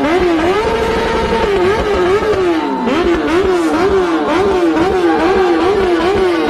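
Inline-four sport-bike engine being revved in place. It holds a high note for a moment, then the throttle is blipped over and over in quick, even rises and falls, about two to three a second.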